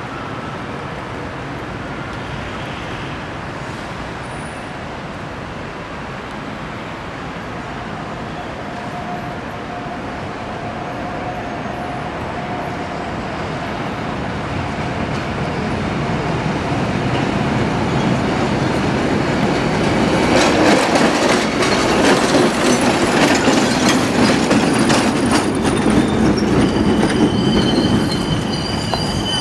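Narrow-gauge ATAC 01-class electric railcar approaching on street track. Its running noise grows steadily louder, then from about two-thirds of the way in the wheels clatter over the rails. Near the end the wheels start to squeal in high tones as the car rounds the curve.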